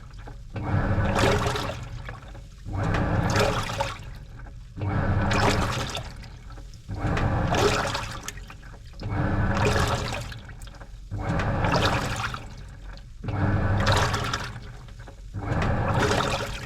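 Washing machine in its wash cycle: water sloshing in regular surges about every two seconds, each with a low motor hum.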